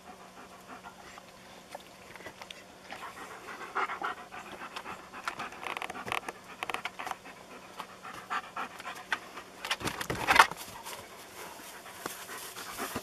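German shepherd panting hard close by, in quick rhythmic breaths. About ten seconds in comes a brief louder rustle.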